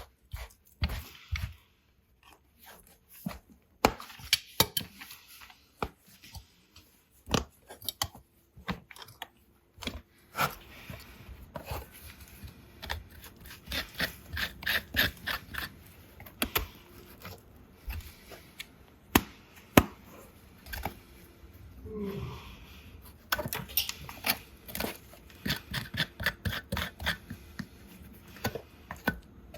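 Farrier's hand tools working on a horse's hoof: a long run of short scraping and clipping strokes on the hoof horn, with sharp clicks in between and denser runs of strokes about halfway through and near the end.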